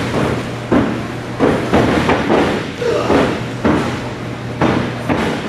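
Several heavy thuds and slams on the wooden boards of a wrestling ring, at irregular intervals, as wrestlers hit the mat.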